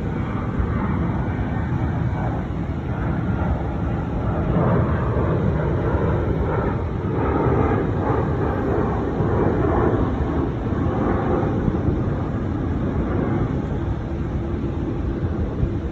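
Jet airliner engines: a loud, steady rumble that swells about halfway through and eases off near the end.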